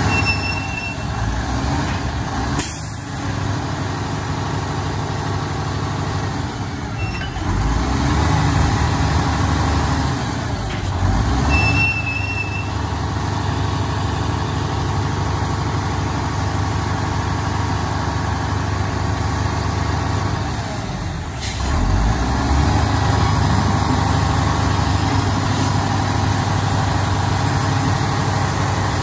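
Mack Granite rolloff truck's diesel engine running to drive the hydraulic hook-lift hoist as it sets down the container, rising in revs about 8 s, 12 s and 22 s in. Short hisses of air about three seconds in and again near 21 s, and a couple of brief high beeps.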